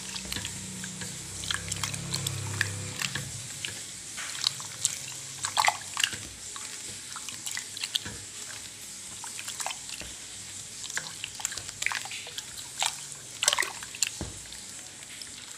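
A hand squeezing and kneading soaked pulp in a steel bowl of water: irregular wet squelches, drips and small splashes.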